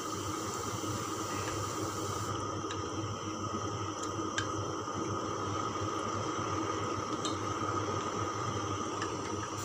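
Steady background hum and hiss of a kitchen, with a few faint light clicks of wooden chopsticks against a stainless steel saucepan as milk, water and butter are stirred over the heat.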